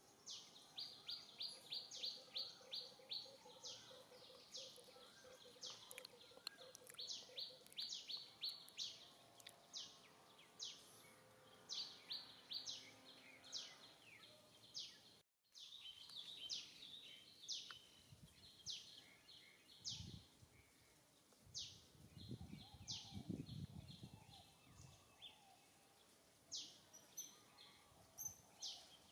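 Faint background of small birds chirping, short high calls coming several a second, with a momentary dropout about halfway. A low, muffled sound rises briefly about two-thirds of the way in.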